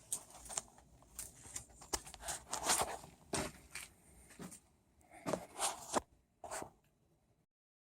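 Irregular handling noises: scrapes, rustles and sharp clicks in uneven bursts, cutting off abruptly near the end.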